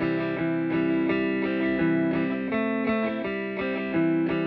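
Electric guitar played through a Poison Noises Spill V2 chorus pedal: a run of picked notes and chords, a new note every third to half second, with the lush chorus effect on the tone.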